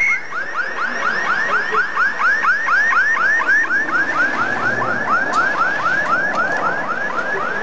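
Electronic yelp siren on a rally course car: a fast, evenly repeating rising wail, about five sweeps a second, over the car's engine and road noise.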